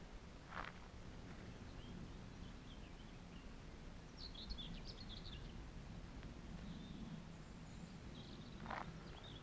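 Faint outdoor birdsong, a short twittering phrase about halfway through, over a steady low rumble of background noise. Two soft scuffs come near the start and near the end.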